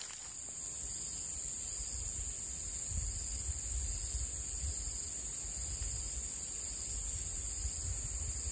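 Steady high-pitched drone of insects, unbroken throughout, with a low rumble underneath.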